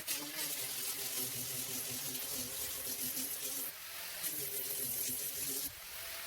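Power sander running against weatherboards: a steady motor hum under a strong hiss of abrasive on timber, easing off briefly about four seconds in and again near the end.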